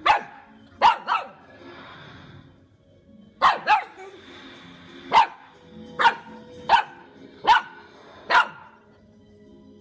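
Puppy barking in play at a spoon on the floor: about ten short, sharp barks. The first few come in quick pairs, then the rest come singly, roughly one a second.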